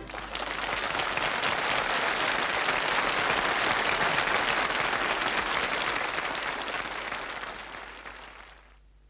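Studio audience applauding, a dense steady clatter of many hands that starts sharply and dies away over the last two seconds.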